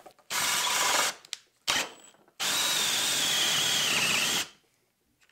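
Makita brushless cordless drill driver turning a spade bit in a pine block. It runs in two short bursts, then in a steady two-second run whose motor whine dips in pitch near the end.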